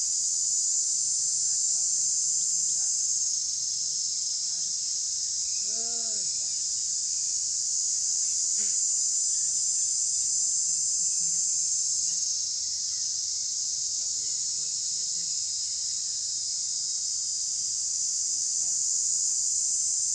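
A steady, high-pitched insect chorus, dropping slightly in level about three seconds in and again about twelve seconds in. A single short call with a rising-then-falling pitch sounds once about six seconds in.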